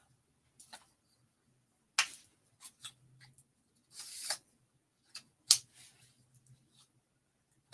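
Clicks and knocks from the telescoping arms and clamps of a tripod-mounted easel being adjusted by hand, with a short sliding scrape about four seconds in. The loudest clicks come about two seconds and five and a half seconds in.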